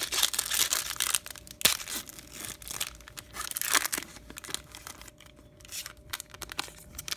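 Baseball card pack wrapper being torn open and crinkled by hand: dense tearing and crackling for the first few seconds, then lighter rustling of the wrapper and cards. The pack is torn open roughly.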